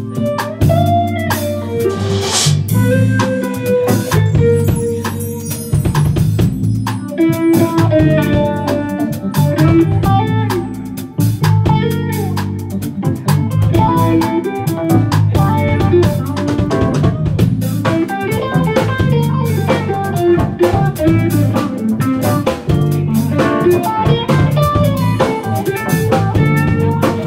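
Live funk-fusion band playing an instrumental groove: electric guitar over drum kit, electric bass and keyboards.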